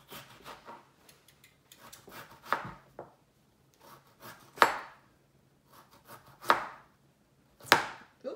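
Knives slicing raw peeled potatoes by hand, the blades knocking sharply against the plate beneath as they cut through: four clear knocks roughly two seconds apart, with softer scraping cuts between them.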